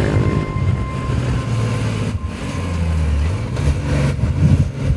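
Off-road vehicle engine running hard while driving on desert sand, its pitch dropping about three seconds in and then rising again.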